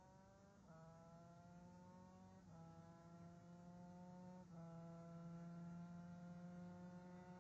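Faint two-stroke engine of a Derbi DRD moped with an Airsal 80 cc cylinder kit, accelerating through the gears in the distance. The engine note climbs, then drops at each of three gear changes, growing slowly louder as the bike approaches.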